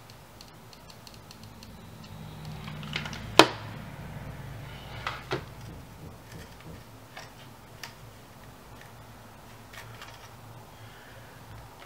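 Cardboard and a white cardstock strip being handled and bent around a cardboard cutout: light rustles and scattered taps, with one sharp click about three and a half seconds in and two smaller ones a couple of seconds later, over a faint low hum.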